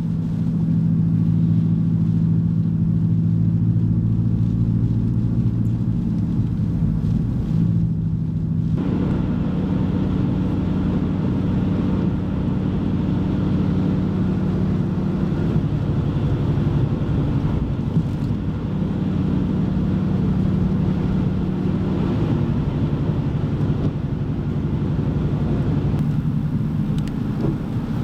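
Car engine hum and road noise while driving, the engine tone shifting to a new pitch a few times. The rushing road and wind noise gets louder about nine seconds in.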